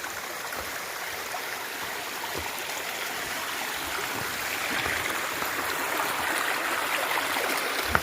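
A stream running steadily, a continuous rush of water that grows a little louder toward the end.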